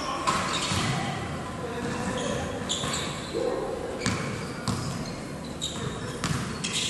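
Basketball game play on a hard indoor court: the ball bouncing and players' quick footsteps, with scattered shouts, echoing in a large gym.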